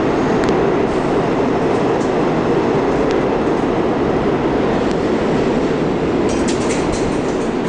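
New York City subway train running through the station, a loud steady rumble. A quick run of clicks comes about six seconds in.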